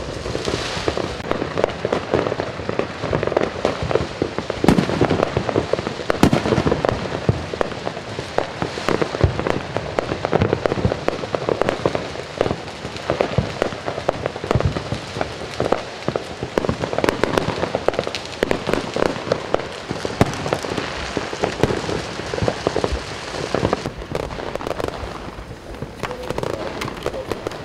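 New Year's fireworks and firecrackers going off in a dense, steady crackle of pops, thinning a little near the end.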